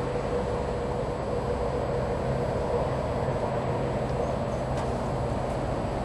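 Steady rumble of road traffic, a continuous rush with a faint engine hum in it.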